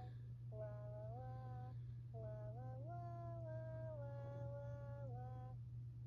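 A high-pitched voice singing a slow tune in held notes, with short breaks between phrases, over a steady low hum.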